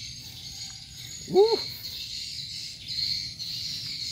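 Insects chirring steadily and high-pitched in the pond-side grass. About a second and a half in, one short call rises and falls in pitch, the loudest sound.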